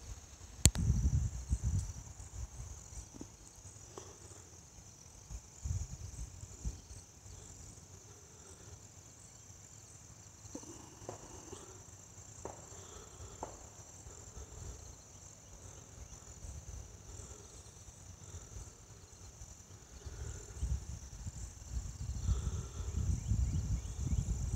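Crickets in the field trilling steadily, a continuous high chorus. Wind buffets the microphone in low rumbling gusts, about a second in and again near the end.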